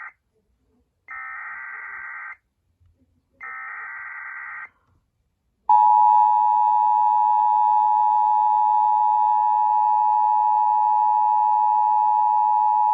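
Emergency Alert System SAME header: two short, harsh electronic data bursts about a second apart, encoding a severe thunderstorm warning. About five seconds in, the louder two-tone EAS attention signal starts and holds steady.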